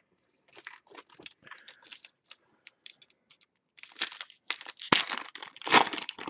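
Foil trading-card pack wrapper crinkling and tearing in the hands as it is ripped open, in short crackly bursts that grow denser and louder about four seconds in.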